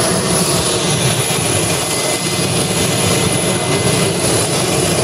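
Brazilian Air Force Boeing 707's four turbofan engines running steadily on the ground: an even, loud jet rush with a thin high whine over it.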